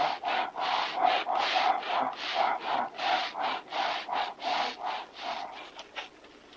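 Rapid, rasping panting, about three breaths a second, dying away about five and a half seconds in.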